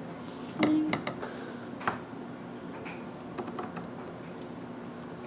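Scissors snipping paper: a few irregular, sharp clicks and snips, the loudest about a second in.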